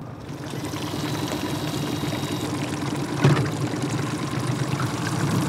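Mercury outboard motor on a jon boat running steadily under way, with water rushing and splashing along the hull. The motor is purring smoothly on freshly changed lower-unit gear lube. A brief knock comes about three seconds in.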